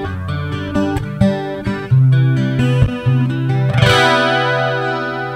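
Acoustic-electric guitar played fingerstyle through a Bullet AC-15C acoustic guitar amp: picked melody notes with sharp percussive taps, then a bright chord struck about four seconds in that rings out and slowly fades.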